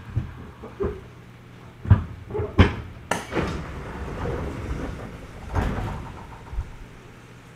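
Passenger sliding doors of a stopped 211-series electric train operating: a run of knocks and clunks with some rushing noise, the two loudest knocks about two and two and a half seconds in, over a steady low hum.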